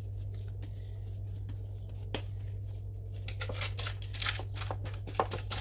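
Baking-paper liners in metal baking tins rustling and crinkling as dough is pressed into them by hand, with a few light knocks, over a steady low hum. The rustling is busiest in the second half.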